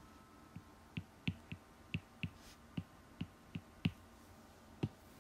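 Stylus tip tapping and clicking on a tablet screen while hand-writing small pencil-mark digits: about a dozen light, sharp clicks at an uneven pace, stopping about five seconds in.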